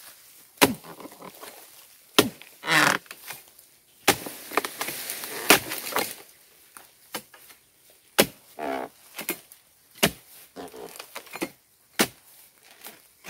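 A dodos, a chisel blade on a long pole, chopping into the frond bases of a low oil palm to free the fruit bunches: a series of sharp strikes about every two seconds, with rustling between some of them.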